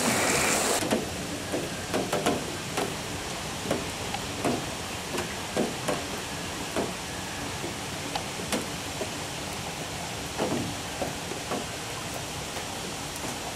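Footsteps on a wet paved path, about one to two steps a second, over a steady hiss of rain. A louder rush of running water cuts off in the first second.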